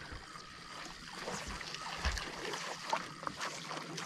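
Small waves lapping against the hull of a drifting boat, with irregular small splashes and knocks.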